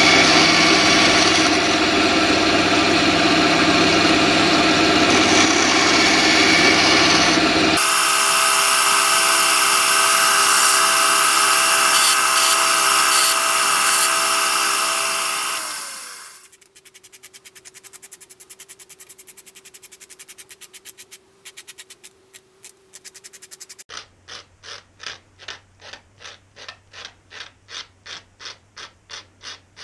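Bandsaw running loud and steady while cutting a small wooden spoon blank; about sixteen seconds in the motor spins down and stops. Near the end, a hand file rasps rhythmically across the wooden spoon, about three strokes a second.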